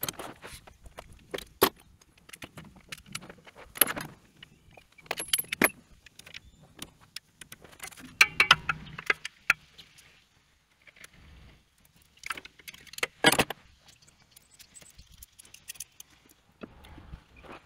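Irregular metallic clinks and rattles of a wrench working the bolts of a backhoe engine's thermostat housing, with louder clanks about eight and about thirteen seconds in.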